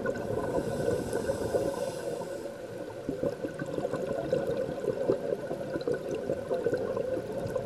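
Underwater bubbling and crackling heard through a dive camera's housing, dense and muffled, easing off a little about three seconds in.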